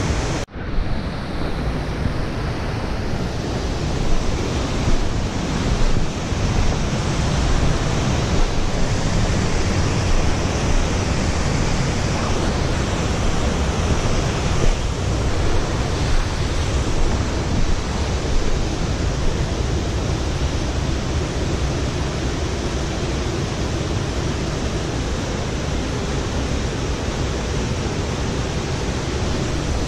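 Steady rushing of fast-flowing water with a deep low rumble. There is a brief dropout about half a second in.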